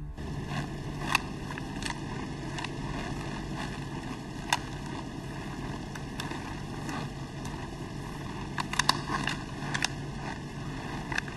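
Steady low rumble with a few sharp clicks and knocks as things are handled in an open car boot: one about a second in, one midway and a quick cluster near the end.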